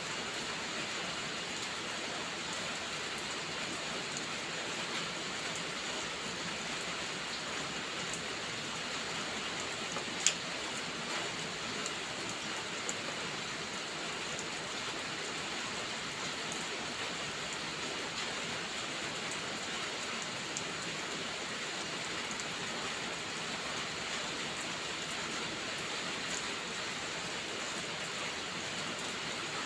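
Steady hiss of heavy rain with a few sharp crackling pops from a wood fire, the loudest one about ten seconds in.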